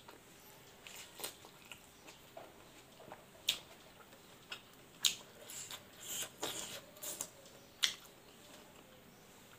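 Close-up chewing with wet lip smacks and mouth clicks as a mouthful of smoked pork and rice is eaten by hand. There is a string of short smacks, the sharpest about three and a half, five and nearly eight seconds in, with a quick cluster in between.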